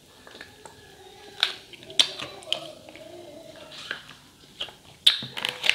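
Sucking a strawberry jelly drink through the spout of a foil drink pouch, with faint mouth clicks and swallows. A few louder sharp sounds come about five seconds in.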